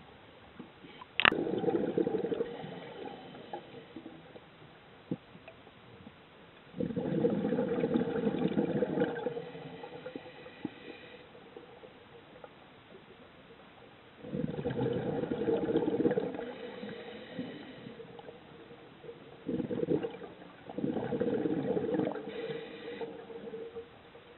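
Scuba diver's regulator breathing underwater: a gurgling burst of exhaled bubbles lasting two to three seconds roughly every six or seven seconds, four in all, with quieter stretches between. A sharp click comes just before the first burst.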